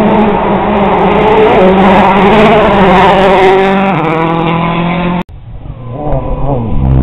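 World Rally Car engine revving hard as the car drives through a forest stage, its pitch stepping down at a gear change about four seconds in. Just after five seconds the engine sound cuts off abruptly, leaving much quieter sound.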